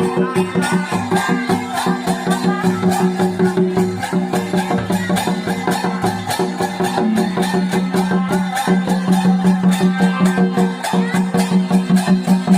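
Santhal folk dance music: a fast, steady beat of rattling percussion under long held melody notes that change pitch every few seconds.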